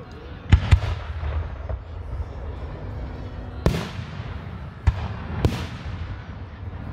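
Aerial fireworks shells going off: two sharp bangs in quick succession about half a second in, then three more bangs spread over the last few seconds, with a low rumble between them.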